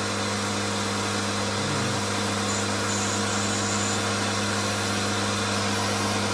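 Pressure washer running steadily: a constant motor hum under an even hiss of water spray as a motorcycle is rinsed.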